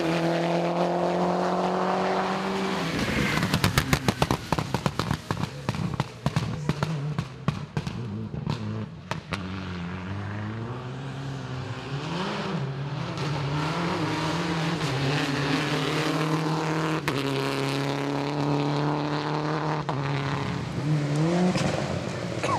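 A rally car's engine runs at high revs, then from about three seconds in a rapid run of sharp crackling pops from the exhaust lasts several seconds. After that another rally car's engine rises and falls in pitch through its gear changes as it comes closer, revving up near the end.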